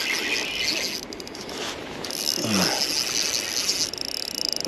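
Fishing reel buzzing and clicking in quick, even ticks while a large hooked cutthroat trout is played and pulls against the rod. A short falling grunt-like voice sound comes about halfway through.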